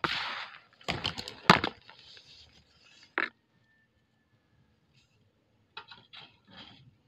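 Dry cement being crushed by hand in a bucket: a gritty rustle of powder, then a few sharp cracks as lumps break about a second in. After a quiet pause, a run of small crackling falls near the end as crumbs sprinkled from the fingers land on the pile.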